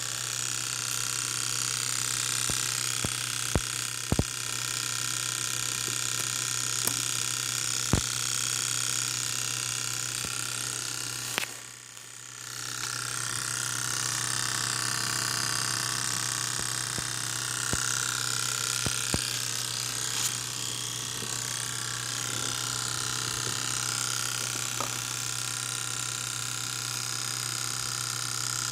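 Constant mechanical clicking noise from the passenger side of a BMW X5M's S63 twin-turbo V8 engine bay after a hard drive and shutdown, over a steady hum, with a few sharper clicks now and then. The electric engine fan has not come on, and the owner wonders whether an injector is still firing.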